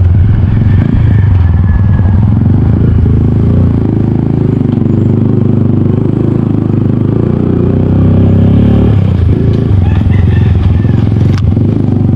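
Motor vehicle engine running steadily, a loud, even low rumble.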